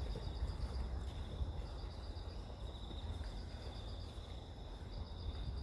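Steady high-pitched insect trilling, a cricket-like chorus, over a constant low rumble.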